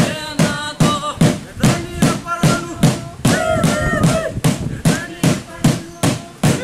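Traditional dance music: a steady struck beat, about two and a half beats a second, with voices chanting over it. The chanting is strongest near the start and again about three and a half seconds in.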